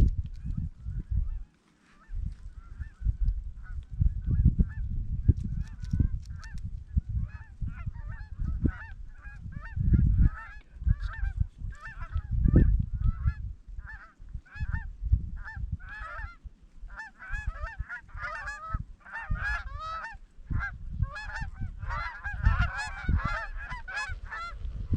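A flock of geese calling, many overlapping honks that grow denser and louder toward the end as the birds close in. Gusts of wind rumble on the microphone underneath.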